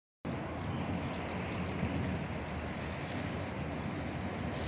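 Steady low rumbling outdoor background noise with no distinct tone, setting in abruptly about a quarter second in.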